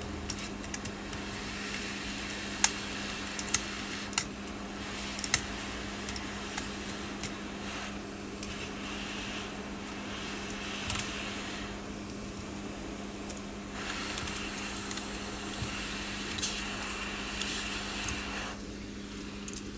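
Hot-air rework heat gun blowing with a steady hum and hiss that twice swells for a few seconds, while a metal blade scrapes and chips away the broken back glass of an iPhone 11, giving many small sharp clicks.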